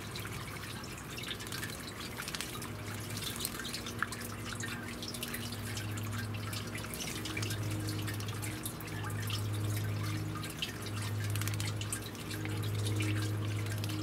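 Garden fountain's water splashing and dripping into a bird-bath basin, a steady patter of small irregular drips. A low hum comes and goes underneath.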